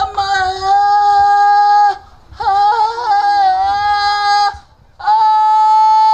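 A high voice crying out in three long, held notes that waver and slide in pitch, with short pauses between them.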